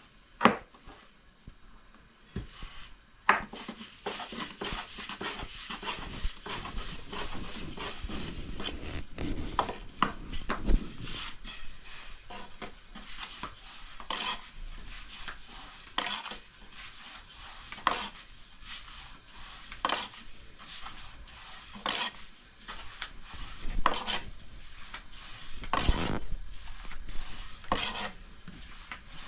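Kitchen utensils and dishes knocking and scraping, with a sharp knock about every two seconds in the second half.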